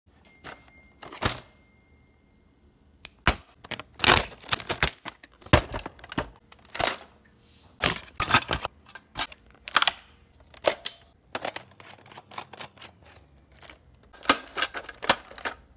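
Air Warriors Exterminator plastic foam-dart blaster being handled: a string of sharp plastic clicks and clacks at irregular intervals, some loud.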